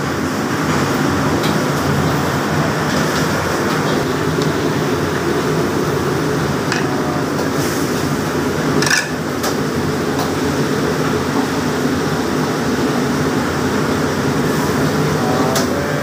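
Steady, loud roar of commercial kitchen machinery running throughout, with a brief sharp click about nine seconds in.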